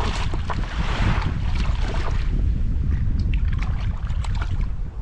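Wind rumbling on the microphone over water sloshing as mud mussels are rinsed in shallow water, with scattered light clicks in the second half.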